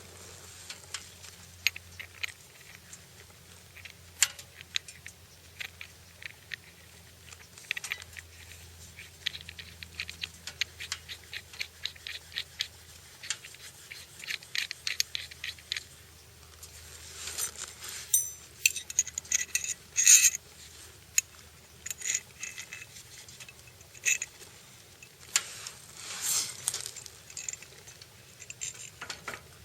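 Hand work on small metal parts: a string of sharp clicks, clinks and scrapes, with a run of even ticks at about five a second in the middle and a denser, louder cluster of clicks later on. The motorcycle engine is not running.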